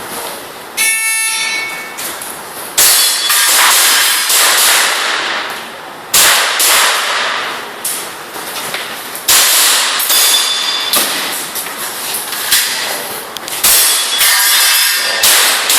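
An electronic shot-timer beep about a second in, then a string of airsoft pistol shots in an IPSC course of fire, each sharp shot followed by a short ring.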